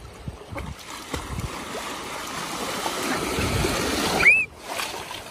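Small sea waves washing in over shallow water, the surf hiss building over a few seconds. About four seconds in, a child gives a short high squeal, and the wash cuts off suddenly just after.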